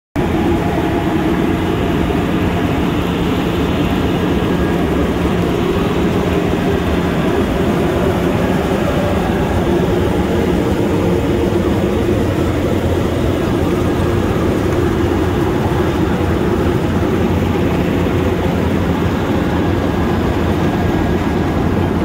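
Vögele Super 2100 tracked asphalt paver running steadily while it lays asphalt: a continuous loud diesel machine drone with a low, even hum.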